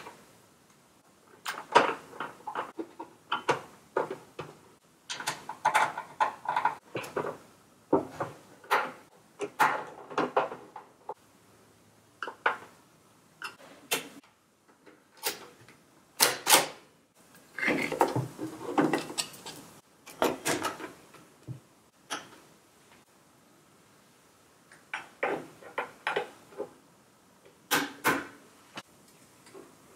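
Irregular clicks, knocks and rattles of plastic and metal parts on a Revox B77 reel-to-reel tape deck being handled and fitted back into place as its front panel and head cover are reinstalled.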